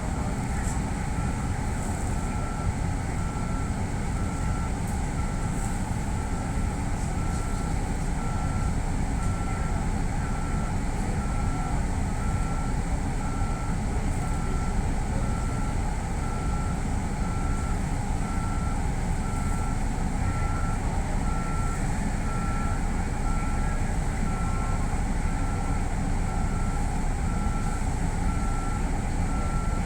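A single-pitched electronic beep repeating at an even, steady rate, over the continuous low hum of an electric train standing stopped on the line.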